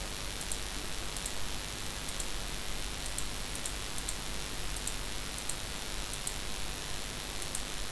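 Steady hiss of recording background noise, with about ten faint, sharp high ticks scattered irregularly through it.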